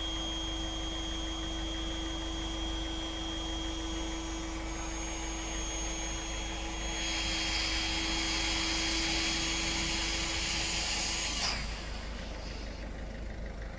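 Electric air pump inflating an inflatable boat's tube, running with a steady whine and rushing air that grows louder about seven seconds in. It cuts off suddenly near the end.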